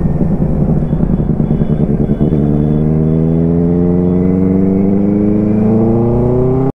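Benelli 600i's inline-four engine running under way, then pulling through a gear from about two seconds in, its pitch rising gradually as the bike accelerates.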